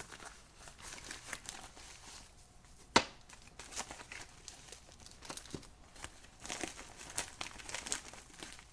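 Mail packaging being handled and opened, with irregular crinkling and tearing rustles and one sharp knock about three seconds in.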